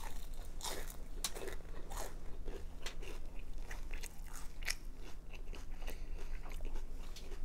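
Crispy fried veggie roll being bitten and chewed: an irregular run of sharp crunches.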